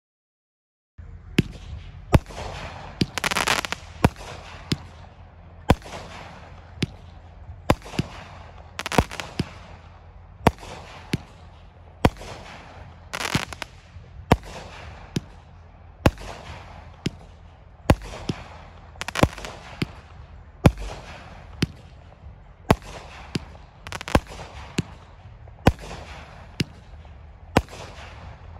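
Sky Bacon Jewelry Box, a 19-shot 200-gram consumer firework cake, firing its shots in sequence. Sharp reports come about once a second, each trailed by a hiss as the shells break, starting about a second in.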